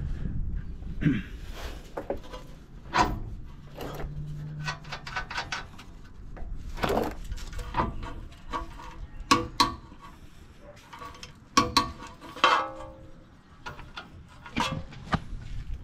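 Irregular metallic clicks and clinks of a socket and torque wrench on the ball-joint-to-steering-knuckle bolts as they are torqued, with a brief low hum about four seconds in.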